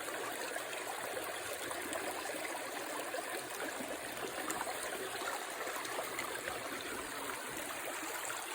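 Creek water running over rocks: a steady babbling and trickling with no break.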